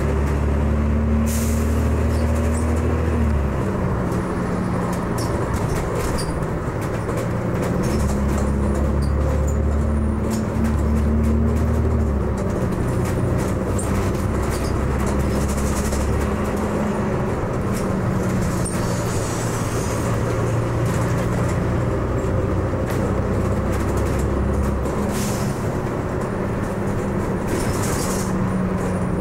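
Volvo Olympian double-decker bus running along the road, heard from the upper deck. The engine note shifts up and down in steps as the bus changes gear and speed, with scattered short rattles and knocks from the bodywork.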